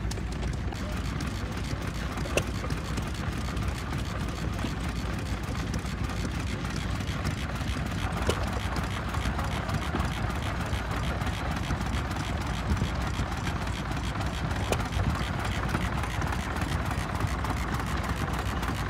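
Several vintage flywheel stationary engines running together, a steady, rhythmic mechanical beat with occasional small clicks.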